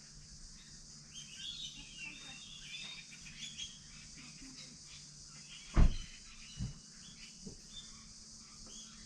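Birds chirping faintly over quiet outdoor background noise. About six seconds in there is one sharp thump, then two smaller knocks.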